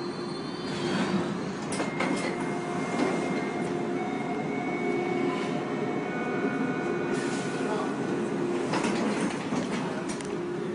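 Toronto subway car heard from inside as it pulls into a station: steady running rumble with long whining squeals, a few sharp clatters, and the doors sliding open.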